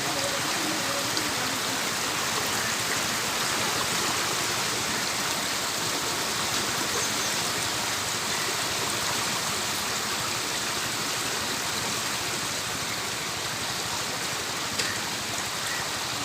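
Floodwater of the swollen Thamirabarani River rushing in a steady, unbroken hiss of moving water, with one brief click near the end.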